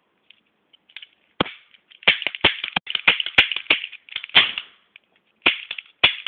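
Orange plastic toy cap gun fired over and over: about a dozen sharp cracks in quick succession, with a few more coming near the end. Folded paper towel is packed under some of the ring caps to muffle their bang.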